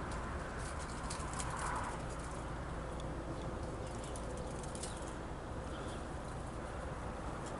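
CSX freight train rolling slowly past: a steady low rumble from the locomotive and cars, with scattered light clicks over the first few seconds.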